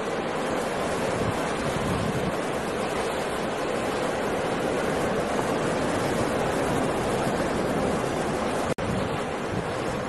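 Rough sea: heavy surf breaking continuously in a steady rush of noise, with strong wind. The sound cuts out for a split second near the end.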